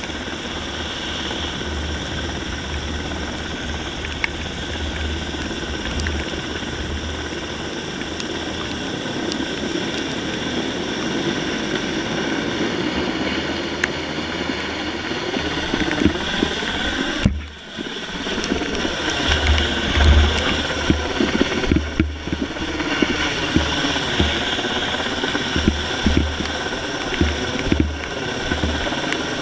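Helicopter rotor and engine noise heard from a rope slung beneath the helicopter during a SPIES extraction, with rotor downwash buffeting the microphone as the rider is lowered to the ground. The buffeting grows gustier and more uneven after a brief dip in level about two-thirds of the way through.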